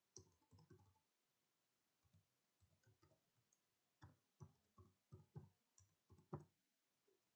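Faint computer keyboard keystrokes, irregular taps as an email address is typed, coming quicker in the second half.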